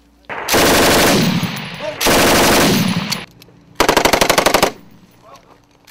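Automatic weapons fire: two long, loud bursts that echo away, then about four seconds in a short burst of rapid shots at about ten rounds a second.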